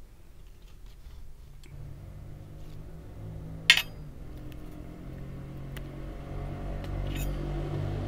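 Cookware clinking: one sharp clink about four seconds in and a softer one near the end, with a few faint ticks, over a low steady hum that grows louder toward the end.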